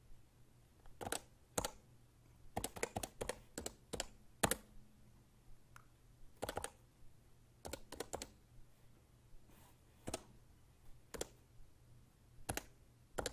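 Realforce 23UB numeric keypad with 45g Topre electro-capacitive switches being typed on: separate keystrokes at irregular spacing, some single presses and some quick runs of several keys, the busiest a few seconds in.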